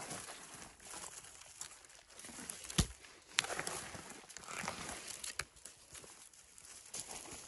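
Rustling of moss and leaf litter as mushrooms are picked by hand, broken by a few sharp clicks and one dull thump about three seconds in.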